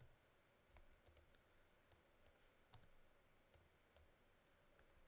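Near silence with a few faint, sharp clicks from the computer's input devices as the presenter works in the software, the clearest about two and a half seconds in.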